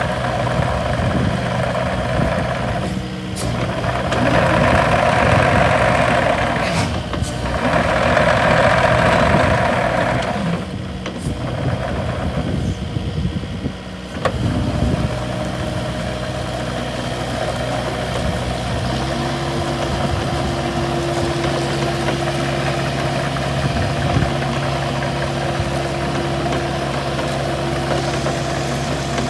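Diesel engine of a Kubota KX080-4a 8-tonne excavator running. There are two louder spells about four and eight seconds in, then it runs steadily from about two-thirds of the way through.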